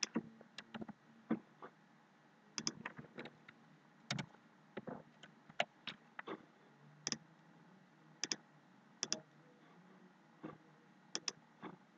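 Faint, irregular clicks of a computer keyboard and mouse: single keystrokes and a few quick pairs of clicks, with pauses of a second or more between them.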